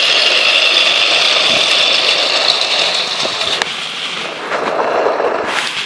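Motorised plastic toy train whirring and rattling along plastic track as it passes close by, a high whine that fades after about three and a half seconds. A lower rattling noise rises near the end and stops abruptly.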